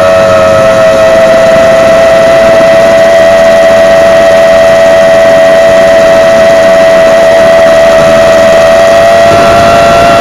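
Eachine Falcon 250 quadcopter's brushless motors and propellers whining loudly at a steady pitch, changing slightly near the end.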